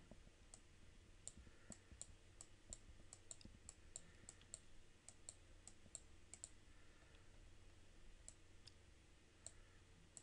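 Faint, irregular clicks of a computer mouse button, several a second, pausing for a couple of seconds about two-thirds of the way through, over a low steady hum.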